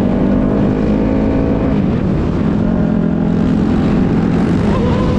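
Dirt bike engine running loud and close at a steady pitch while riding along, with a brief change in pitch about two seconds in.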